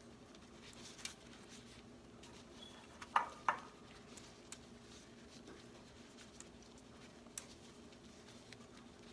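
Faint rubbing and rustling of plastic-gloved hands spreading butter over slices of French bread on a foil-lined tray, with scattered light clicks. Two short, sharp noises come close together about three seconds in, over a faint steady hum.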